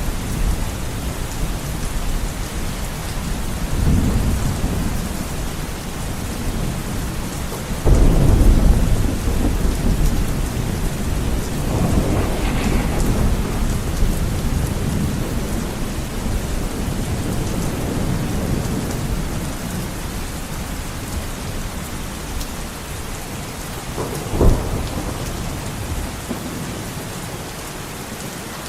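Heavy rain pattering steadily on a window pane, with rolls of thunder: a sudden loud rumble about 8 seconds in, further rolls around 4 and 12 seconds, and a short sharp thunder crack near the end.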